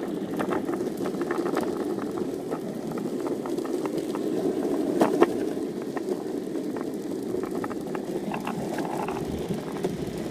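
Longboard's wheels rolling on asphalt: a steady rumble with scattered light clicks, and a sharper knock about five seconds in.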